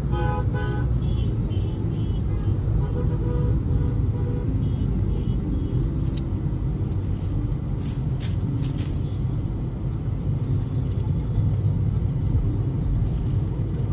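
Busy street ambience with a heavy low rumble, music playing, and sharp rattling bursts around the middle and again near the end.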